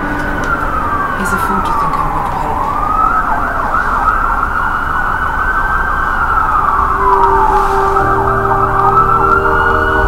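Emergency siren wailing, its pitch rising and falling slowly about once every four to five seconds, with a faster warbling tone over it at times. From about seven seconds in, a steady low hum joins.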